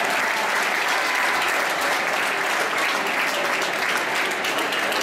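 A large crowd applauding steadily: many hands clapping at once, unbroken.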